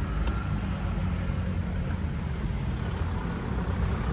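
Steady low rumble of a car engine and tyres as a car approaches along the street.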